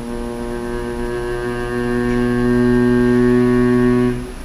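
Ship's horn sounding one long, steady, deep blast that grows louder about two seconds in and stops sharply near the end.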